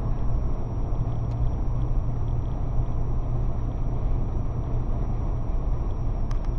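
Steady road and engine rumble of a moving car heard from inside the cabin through a dashcam's microphone, with a faint thin high whine held throughout.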